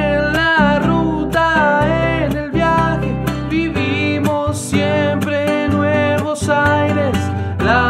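Music: a strummed acoustic guitar song with a sung melody, the family's Scout theme song.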